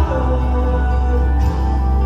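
Live pop music from a stage performance, with long held notes over a heavy, steady bass.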